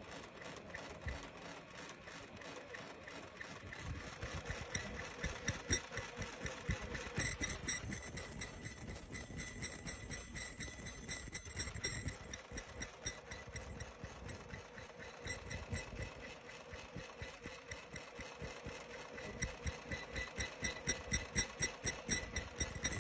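Automatic 3-ply face mask making machine running at production speed: a fast, even clatter of about five strokes a second, with a steady high whine.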